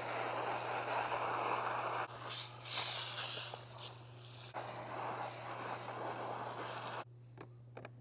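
Garden hose spray nozzle hissing as its jet washes fine dirt and leaves out of a robotic pool cleaner's mesh filter panels and plastic filter basket. The spray changes tone a couple of seconds in as it hits a different part of the filter, and stops suddenly near the end.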